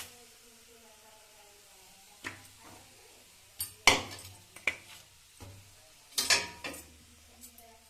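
Pots and utensils clattering: a few sharp knocks and clangs, loudest about four seconds in and again a little after six seconds.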